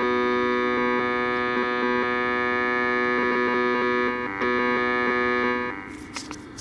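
Steady buzzing tone with many overtones from a signal tracer's speaker as its probe touches a point in a transistor radio's circuit. It drops out briefly about four seconds in and cuts off near the end, followed by a few faint clicks.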